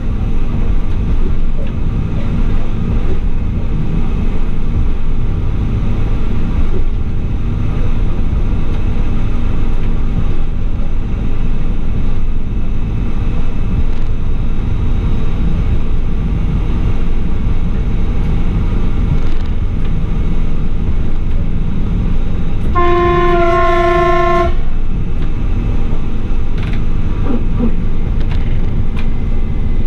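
Running noise of a ČD class 840 RegioSpider diesel railcar heard at its bogie: a steady low rumble of wheels on rail. About three-quarters of the way through, the railcar's horn sounds one short two-tone blast of under two seconds.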